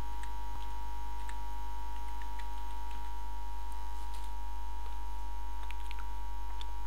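Steady electrical mains hum from the recording setup, with a few faint, scattered clicks.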